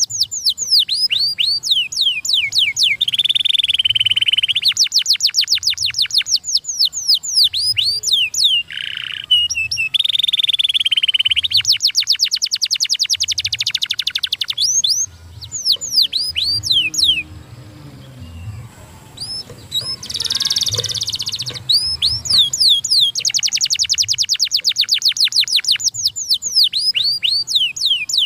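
Domestic canary singing: fast trills of rapidly repeated down-sweeping notes alternating with buzzy rolls. The song thins out and goes quieter about halfway through, then picks up again with the same rapid trills.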